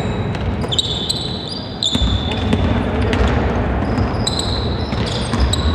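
Sneakers squeaking on the court floor in short, high chirps as players cut and stop, with a basketball bouncing and scattered voices over a steady hall rumble.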